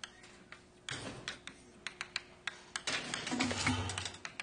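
A run of irregular light taps and clicks, the strokes of writing, starting about a second in.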